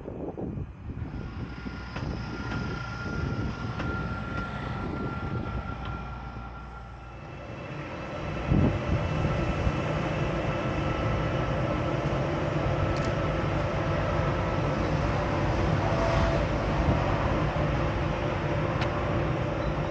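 Electric locomotive sounds. First the CRRC 'Bison' electric locomotive runs slowly along the track with a steady high tone over low rolling rumble. About seven seconds in this gives way to a louder, steady hum of several tones and fan-like noise from a standing electric locomotive close by, with a single sharp thump about a second later.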